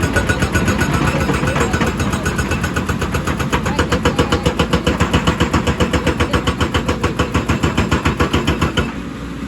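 Excavator-mounted hydraulic rock breaker hammering rock in a rapid, even stream of blows over the excavator's diesel engine, stopping abruptly near the end.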